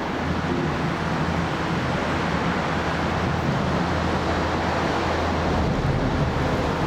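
Diesel engine of an approaching TEP70BS passenger locomotive, a steady low drone under a broad rushing noise, growing slightly louder as the train nears.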